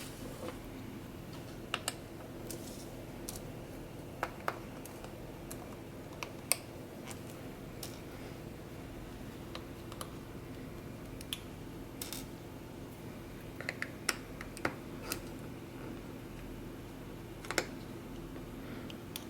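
Small screwdriver taking out the speaker screws inside an open MacBook Pro, giving sparse, irregular light clicks and taps over a steady low hum.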